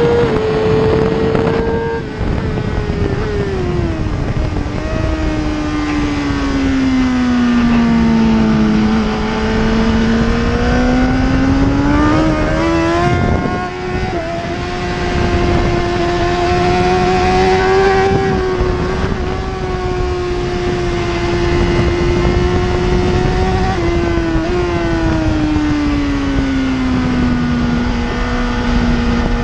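BMW S1000RR inline-four superbike engine at racing speed, heard from onboard with wind rushing past. Its pitch falls long and slow under braking, then climbs again on the throttle, with short breaks in the tone at gear changes about halfway through and again about four-fifths of the way.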